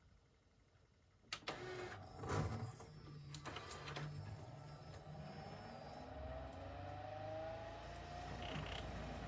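Pioneer CLD-D504 LaserDisc player mechanism working: a run of clicks and knocks about a second in, then a steady motor hum with a whine that slowly rises in pitch.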